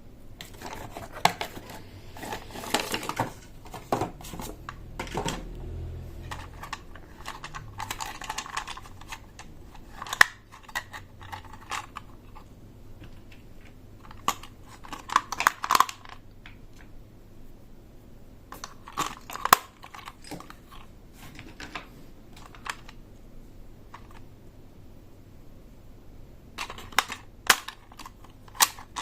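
Hands unpacking and handling plastic toys: packaging crinkling and tearing, with scattered sharp clicks and taps of plastic pieces.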